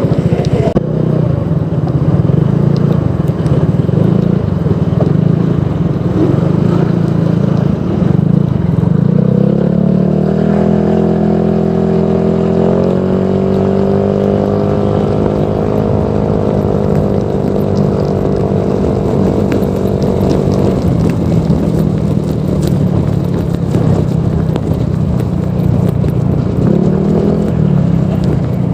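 Honda PCX 160 scooter's single-cylinder engine breathing through a Proliner Neo Silent aftermarket exhaust. It idles, revs up about ten seconds in, holds the higher revs for several seconds, then drops back to idle. There is one short blip of the throttle near the end.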